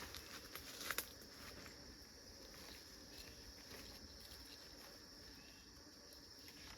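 Faint, steady high-pitched chirring of forest insects, with a few light clicks and rustles in the first second.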